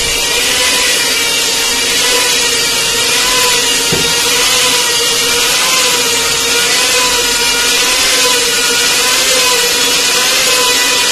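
Electric cylinder boring machine running as it rebores a Hero Splendor Pro's cylinder barrel: a steady whine that wavers slightly, over a hiss, with one short knock about four seconds in.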